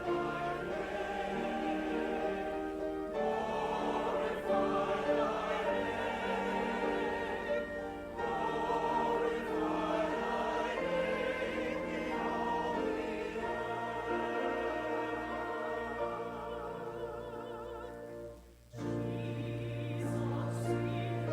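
A choir singing a sacred choral piece with accompaniment, in sustained chords that shift every few seconds; a phrase breaks off briefly near the end before a new chord with a strong low bass note.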